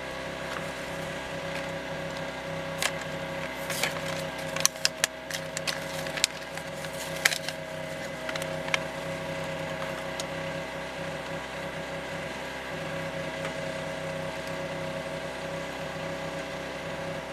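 A portable generator hums steadily throughout. Between about 3 and 9 seconds in comes a cluster of sharp clicks and snaps from Teflon tape and pipe fittings being handled.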